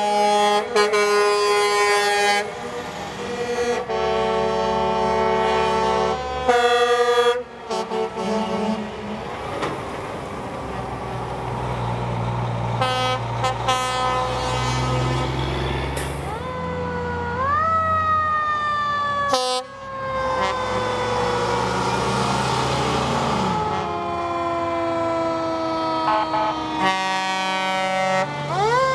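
Heavy trucks' air horns blast several times in a row. Diesel engines rumble past. Then, about two-thirds of the way in, a fire engine's siren wails, rising quickly and falling slowly, and starts rising again near the end.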